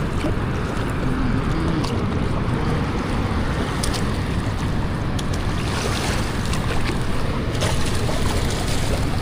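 Steady rushing of water at a river dam spillway, with wind buffeting the microphone.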